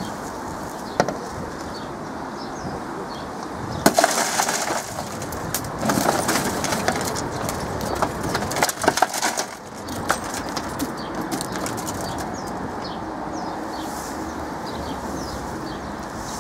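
Car side window shattering under the glass-breaker tip of a Victorinox Rescue Tool: a sharp crack about four seconds in, then several seconds of crunching and tinkling as the crumbled glass is knocked out of the frame. Birds chirp faintly throughout.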